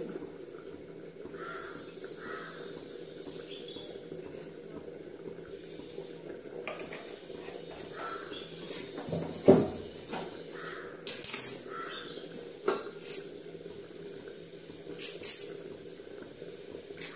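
Kitchen utensils and pots clinking and knocking now and then, several sharp clicks in the second half, over a steady low hum.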